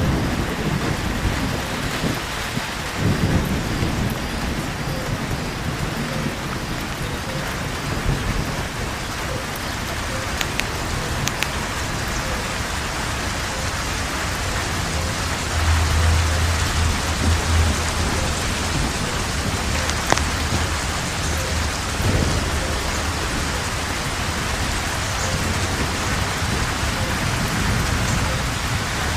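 Steady rain falling, with low thunder rumbling about three seconds in and again for a couple of seconds past the middle.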